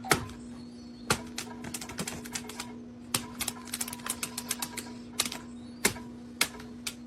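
A run of sharp, irregular clicks and taps, several in quick clusters, over a steady low hum.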